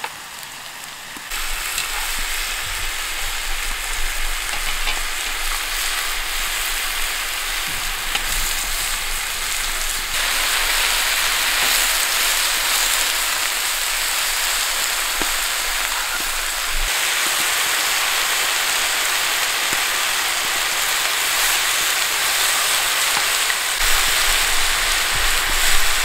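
Dakgalbi (spicy chicken, cabbage and rice cakes) sizzling and frying on a griddle pan over an open fire, a steady hiss that starts about a second in and shifts in level a few times.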